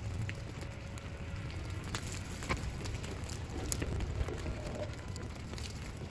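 Meadow grass fire crackling, with irregular sharp pops scattered over a low steady rumble.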